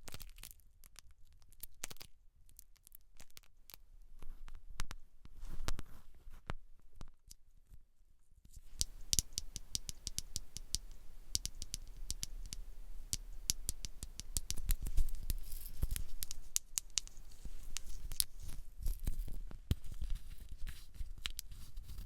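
Close-miked scalp-care ASMR: hair and scalp being rubbed and scratched, making crisp crackling. The crackles are sparse at first and become a dense, continuous crackling from about eight seconds in.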